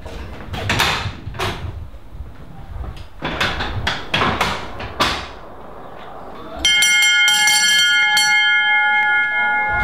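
A bell rung rapidly and continuously, starting suddenly about six and a half seconds in, with a ring of several high tones. Before it come scattered sharp knocks and clicks.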